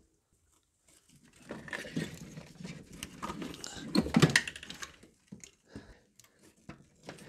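Intake manifold being lifted off the engine and handled: a jumble of knocks, clicks and scrapes against the engine and its hoses, starting about a second in and loudest about four seconds in, then a few faint clicks.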